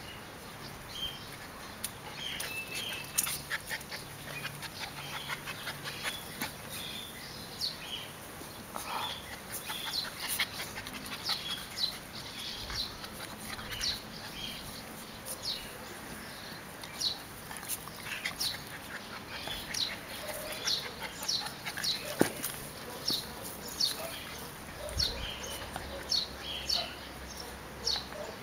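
Welsh Terrier and Airedale Terrier puppies play-fighting, making small whining and yipping sounds among many quick, high-pitched chirps.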